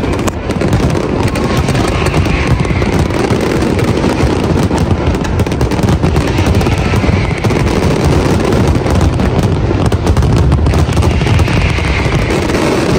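Large fireworks display going off: a dense, continuous barrage of many rapid bangs and crackles.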